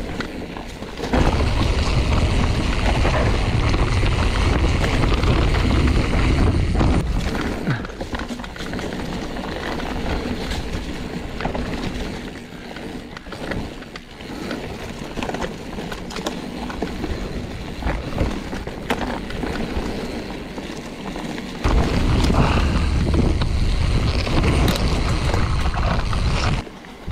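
Mountain bike riding a dirt forest singletrack: tyres running over the trail and the bike rattling and knocking over bumps. Heavy wind buffets the microphone on two faster stretches, from about a second in to about six seconds, and again for most of the last five seconds.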